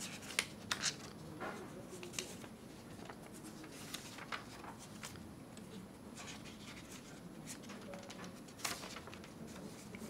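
Quiet room tone with scattered small clicks and rustles, a few louder ones in the first second and one near the end.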